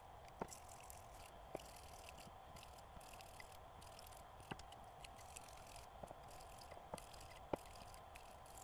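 Near silence: faint room tone with about six soft, scattered clicks, as of a metal-handled brush and parts knocking against a glass dish while scrubbing.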